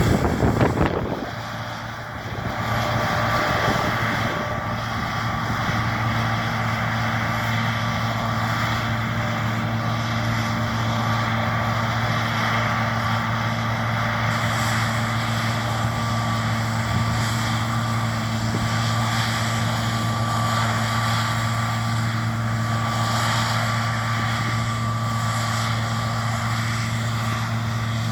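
John Deere T670i combine harvester running steadily while cutting: a constant engine drone with a broad mechanical rush over it, after a brief buffeting in the first couple of seconds.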